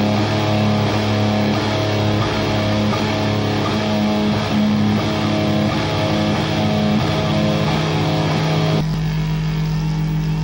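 Live punk rock band playing loud, with distorted electric guitar. About nine seconds in the music cuts off abruptly, leaving a steady low drone.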